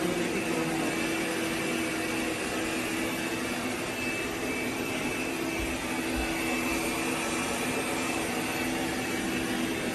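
AIRROBO T20+ robot vacuum running steadily: an even whirring of the suction motor with a low hum and a high whine held throughout.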